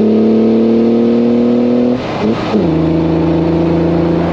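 1965 Chevrolet Corvair's air-cooled flat-six, now fuel-injected, pulling on the road with its revs slowly climbing. About two seconds in the revs fall, then the engine holds steady at a lower pitch.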